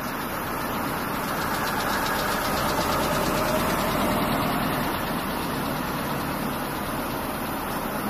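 Motor vehicle engine running steadily, swelling a little a few seconds in and easing off again.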